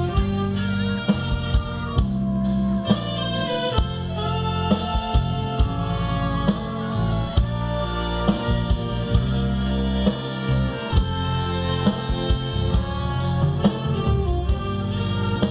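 An orchestra playing music with a steady beat.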